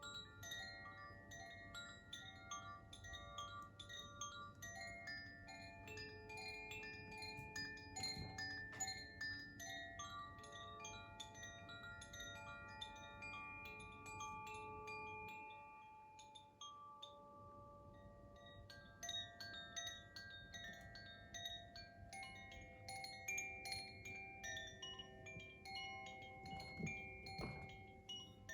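Koshi wind chime ringing: many clear, overlapping tones as the clapper strikes the tuned rods, thinning out about halfway through before picking up again. A couple of low knocks near the end.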